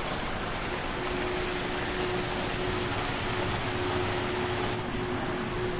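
Small stream of foaming sewage water rushing and splashing over rocks, a steady noise. A faint steady tone comes in about a second in.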